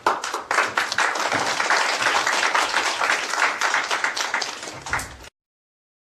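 Congregation applauding, many hands clapping together, which cuts off suddenly about five seconds in.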